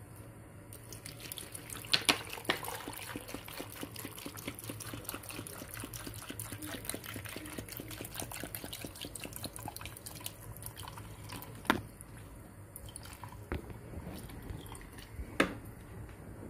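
Water poured from a bottle into a blender jar holding cut fruit, sugar and ice cubes: a continuous pouring and trickling with many small clicks, and a few sharp knocks, the loudest about two seconds in.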